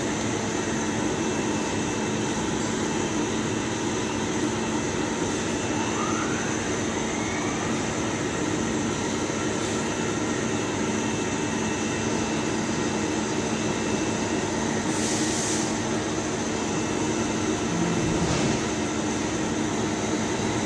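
Steady hum and whir of running machine-shop equipment, with a faint rising whine about six seconds in and a brief hiss about fifteen seconds in.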